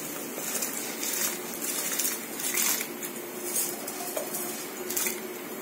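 Soaked basmati rice being tipped and scraped from a steel bowl into a steel pot of boiling water: the bowl clinks and scrapes against the pot several times over the hiss of the boiling water.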